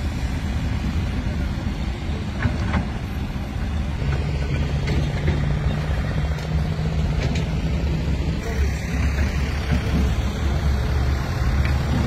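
Heavy construction machinery engine running steadily with a low rumble, and a steady hum joining in about four seconds in before fading.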